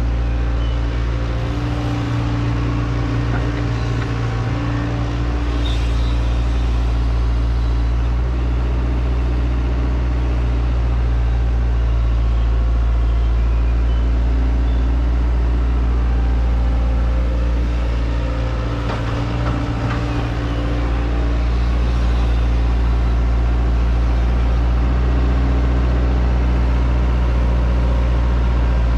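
Hydraulic excavator's diesel engine running steadily while digging, its low drone shifting briefly twice as the machine takes load.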